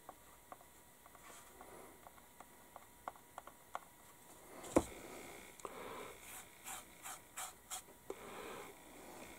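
Faint handling noises from a plastic scale model being turned over in the hands: light ticks and taps, one sharper knock about five seconds in, then a quick run of short rubbing scrapes.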